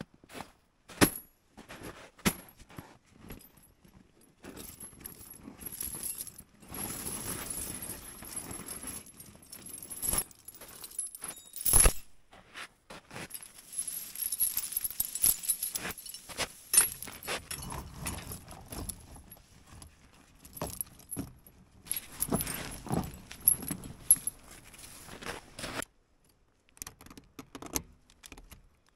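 Loose metal jangling and clinking in several bursts, with sharp clicks and knocks between them.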